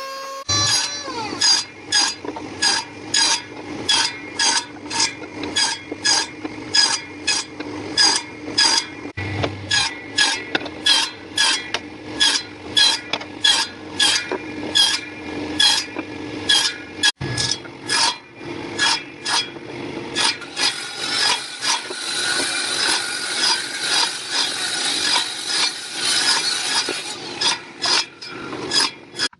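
Rhythmic rasping strokes on wood, about two a second, over the steady hum of a running motor. From about twenty seconds in, the strokes run together into continuous rubbing.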